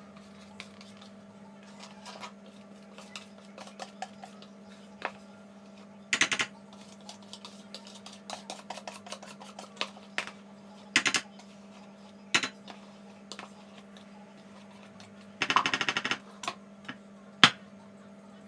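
Kitchen utensils and dishes clinking and knocking, with short rattling bursts three times, the longest near the end, over a steady low hum.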